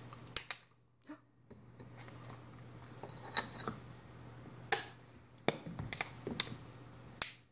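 Aluminium soda can handled over a glass of ice: scattered light clicks and taps, a few sharper ones, as root beer that froze in the can is worked out into the glass. A faint low hum runs underneath.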